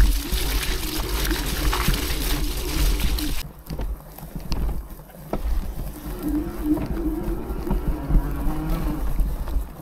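Electric bike riding over a rough grassy track, with wind rushing on the microphone, tyre noise and a low wavering drone. The rushing noise drops away sharply about three and a half seconds in.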